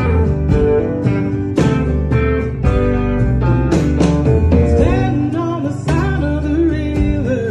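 Live acoustic guitar strummed in a steady rhythm with the band, and a woman's voice starting to sing about five seconds in.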